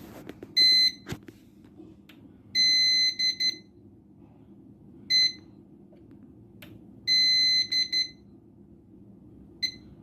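Electronic piezo beeper giving about five irregular high-pitched beeps of varying length, some short and some lasting most of a second and broken up, over a low steady hum.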